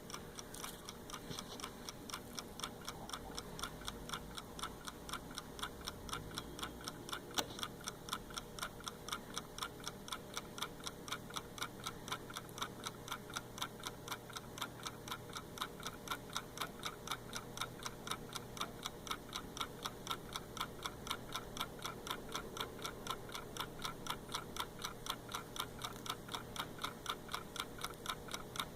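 Hand-wound mechanical clock ticking at a quick, even rate, heard close up at the back of its movement, with one slightly louder knock about seven seconds in.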